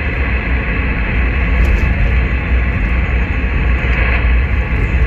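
CB radio receiver hiss through the speaker: a steady band of static from the open channel, over the low rumble of the vehicle the mobile rig is in.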